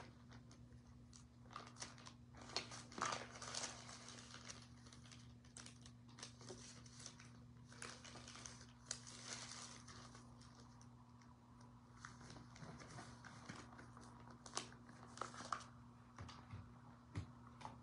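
Faint rustling with scattered light clicks and taps from hands handling paper, over a steady low hum.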